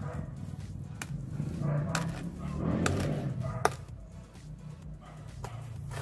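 A small steel trowel scraping and pressing wet cement mortar against the base of a vase, with sharp clicks as the blade knocks on a glazed tile. The scraping is loudest a couple of seconds in, and a low steady hum runs underneath.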